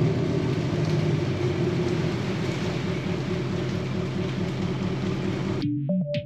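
A vehicle engine running with a low rumble that cuts off abruptly about five and a half seconds in. Electronic synthesizer music takes over at that point.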